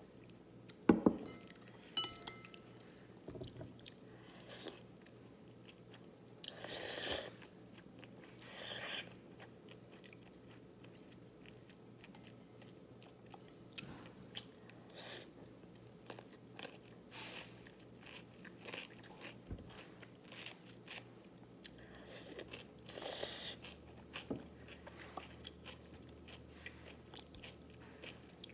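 Close-miked eating of Korean cold noodles with cucumber: soft crunching and chewing with many small wet clicks. There is a sharp clack about a second in and a few longer noisy stretches along the way.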